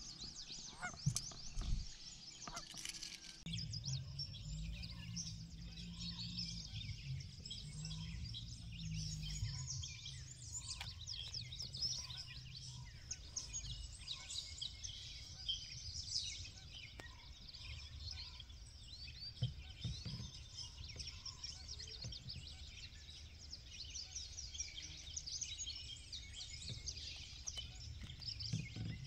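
Wild birds calling in a dense chorus of short, high chirps, over a steady low hum that comes in about three seconds in.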